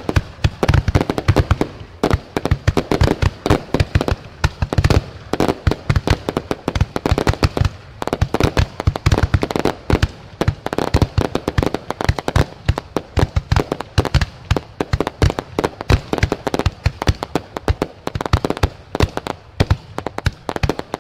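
Fireworks going off in rapid, dense succession: many sharp bangs and pops every second, with no pause.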